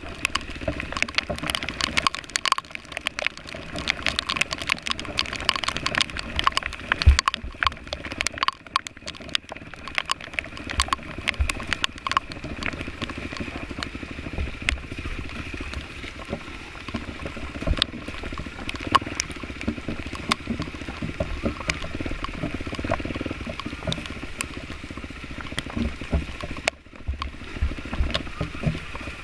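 Rain pattering on the camera and gear, with dense irregular taps and knocks, over a dirt bike engine running steadily underneath.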